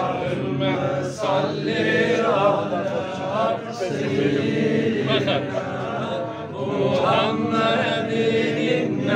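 A group of men chanting a Sufi devotional chant together, voices overlapping in one steady, unbroken stream.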